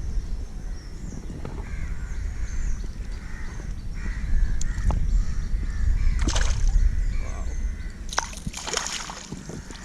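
Harsh bird calls, several in a row, over a steady low rumble.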